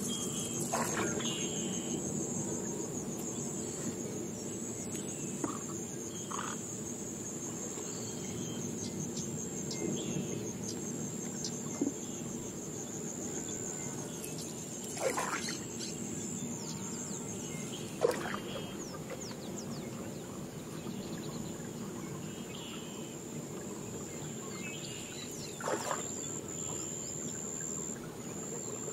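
Jungle river ambience: a steady high-pitched drone of insects and crickets over a low wash of water, with scattered bird calls. A few sharp splashes or knocks, the loudest about 15 and 18 seconds in, come from a paddle stroking the water beside a small boat.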